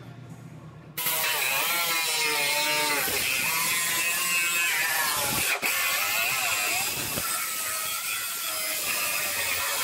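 Air cut-off tool with a thin abrasive wheel cutting through the sheet-metal rear body panel, starting about a second in. Its whine wavers up and down as the wheel bites into the metal, with a brief break a little past the middle.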